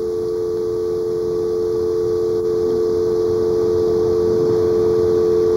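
Telephone dial tone from an off-hook receiver: a steady two-note hum, slowly growing a little louder.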